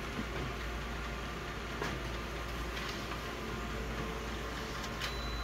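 Office multifunction photocopier running as it prints a copy: a steady mechanical hum with a few faint clicks.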